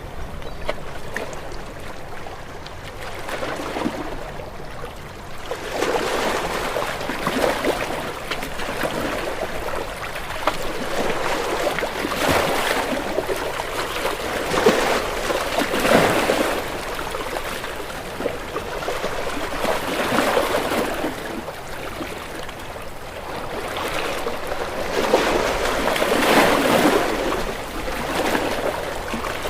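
Ocean waves washing against rocks in a continuous rush of surf, swelling and breaking every few seconds, with louder crashes near the middle and again near the end.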